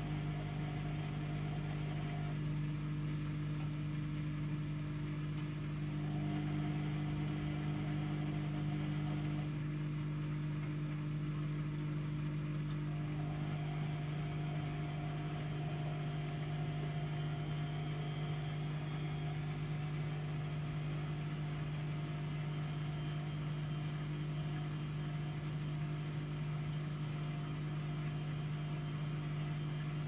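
AEG Lavamat 50435 front-loading washing machine in its interim spin, the drum motor running at a steady speed with an even, unchanging hum.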